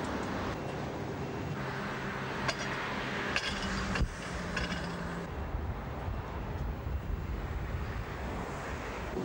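Electric tram running, a steady low hum over rolling noise, with a couple of sharp clicks about two and a half and four seconds in.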